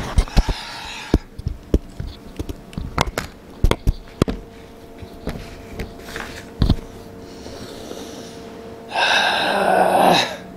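Handling noise from a microphone that a cat has just knocked over and broken: scattered clicks and knocks, and a faint steady hum for several seconds. Near the end comes a loud breathy rush lasting about a second and a half.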